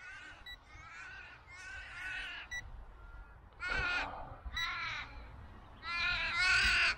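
Australian ravens cawing: about six drawn-out, nasal calls, the last one longest and loudest near the end, as the birds go for a small drone in the air.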